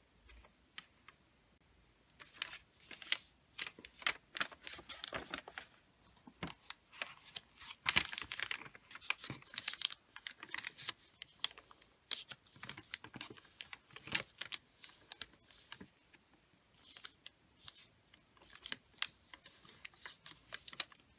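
Sheet of wrapping paper folded and creased by hand, giving irregular crinkling and short crackles as fingers press and run along the folds, starting about two seconds in.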